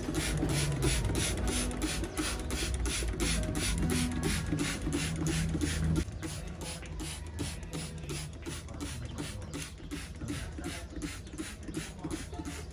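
Background music with a steady electronic beat of about four ticks a second over low bass notes, getting quieter about halfway through.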